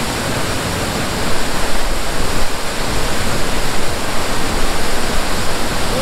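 Waterfall close by: a loud, steady rush of white water pouring over rock into a pool.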